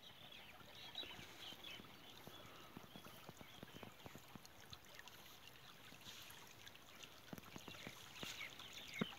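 Faint outdoor ambience: scattered soft ticks throughout, distant birds chirping now and then, and one sharper tick near the end.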